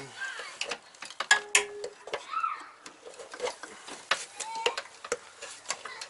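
Flathead screwdriver and hands working at the plastic wire loom and connectors of a car's wiring harness: a string of irregular small clicks and taps, with a couple of brief squeaks.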